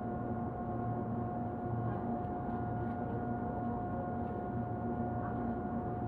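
Interior ambience of a Tobu Urban Park Line electric commuter train: a steady low rumble with a constant mid-pitched hum.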